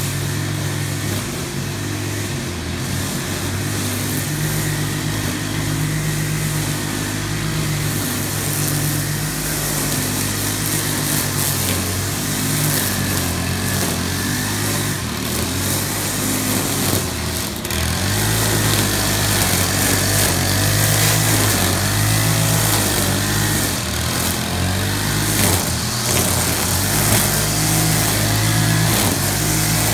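Gas string trimmer engine running, its speed rising and falling as the throttle is worked, louder in the second half.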